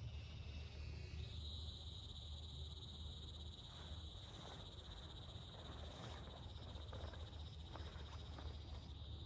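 Chorus of frogs and insects, a steady high trill held throughout, over a faint low rumble with a few soft ticks.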